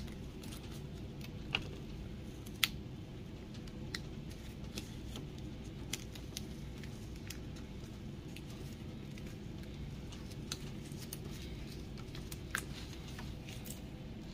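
Scattered light clicks and taps, as of small objects being handled, over a steady low hum.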